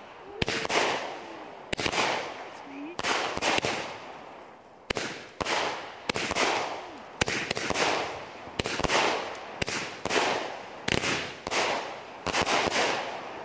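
A 200-gram consumer firework cake firing its shots in quick succession. About a dozen sharp bangs come roughly one a second, each trailing off in a hiss as the burst fades.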